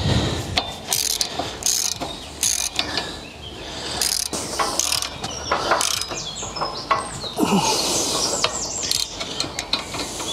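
Hand ratchet wrench with a socket clicking in quick, uneven strokes as it works a bolt on a spring-tine bar. It is hard going: the bolt is stiff and was not sprayed with penetrating oil beforehand.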